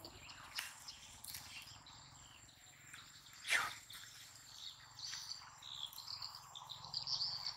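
Faint high chirping and twittering calls, thickest in the second half, with one brief sharp scuff about three and a half seconds in.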